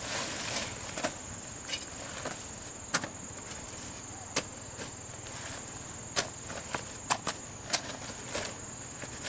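Insects, crickets or similar, chirring in a steady high continuous tone, with about seven sharp knocks or clicks scattered through it.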